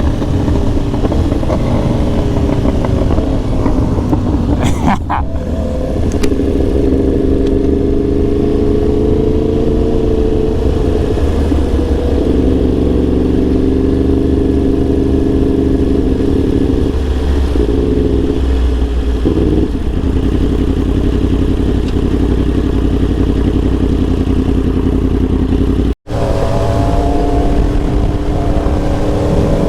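Yamaha R1 sportbike's inline-four engine running under way at fairly steady revs, its pitch rising and falling gently as the throttle varies. There is a brief interruption about five seconds in and a sudden cut near the end, after which the engine note carries on.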